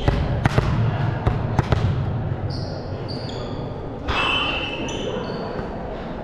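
Volleyball play on an indoor court: several sharp ball hits in the first two seconds, then short high sneaker squeaks on the hall floor. Voices echo in the hall.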